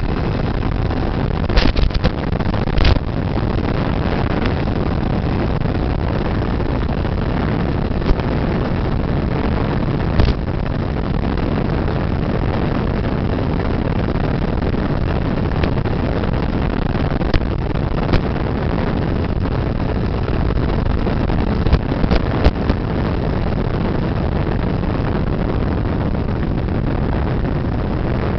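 Steady rushing noise of an FPV model plane in flight, heard from its onboard camera: mostly air rushing over the microphone, with a few brief crackles.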